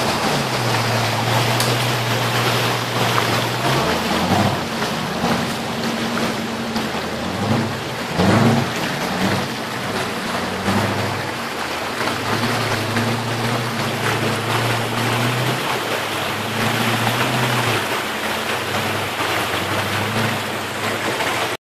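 Off-road buggy's engine revving up and down in repeated bursts as it crawls up a rocky stream bed, over the steady rush of the river water.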